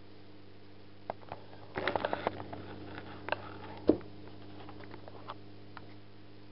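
Handling noise from a camera moved about against a small aquarium: a cluster of light scrapes and clicks about two seconds in and one sharp knock near four seconds, over a steady low hum.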